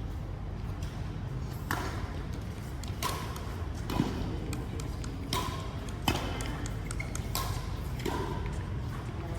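Badminton rally: rackets strike the shuttlecock about seven times, roughly once a second.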